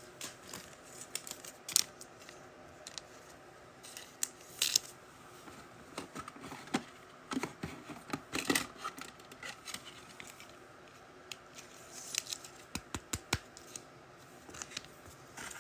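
Trading cards being handled: irregular light scrapes, slides and clicks of card stock and plastic sleeves.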